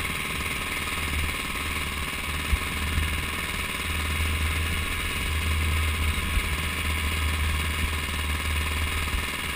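KTM motocross bike's engine running at low revs as the bike rolls slowly over dirt, heard through a handlebar-mounted camera, with a steady low rumble and two brief knocks about two and a half and three seconds in.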